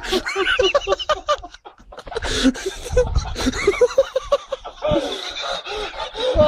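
People laughing hard in quick repeated bursts of "ha-ha".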